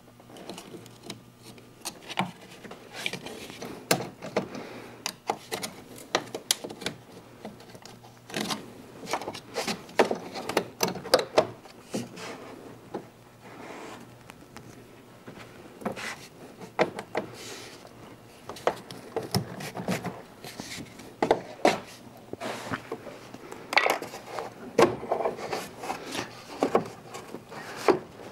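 Hand tools and fingers working plastic engine-bay parts loose: irregular clicks, knocks and scraping as the clip and fasteners of the plastic sound tube are pried and pulled.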